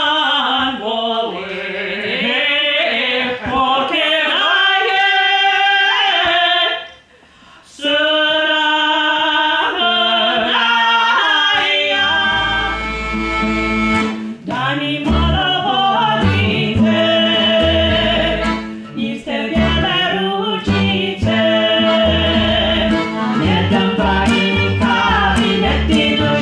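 Women's voices singing unaccompanied, breaking off briefly about seven seconds in and resuming. From about twelve seconds in, a folk band comes in under the singing: a plucked double bass, oud and accordion.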